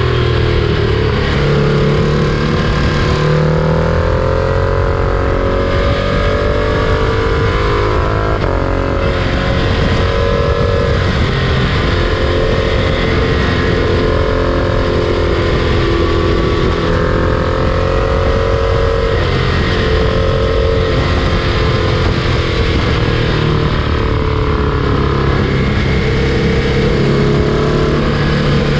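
Freight train running up close: a steady rumble with a droning tone that slowly drifts in pitch.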